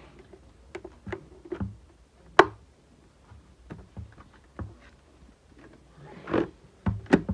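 Hard plastic clicks and knocks from an Ignyte IGN-4 full-face helmet's visors being worked by hand, the inner sun visor and the clear outer visor clicking through their detents. One sharp click stands out about two and a half seconds in, with a quick run of clicks near the end.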